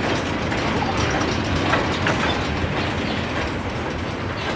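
Freight wagons rolling past on the rails, a steady rumble with irregular metallic rattling and clicking and a faint wheel squeal.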